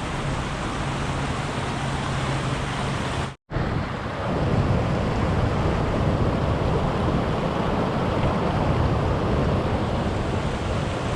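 Fast-flowing mountain creek rushing over rocks, a steady full roar of water. It cuts out briefly about three and a half seconds in, then comes back a little louder and deeper.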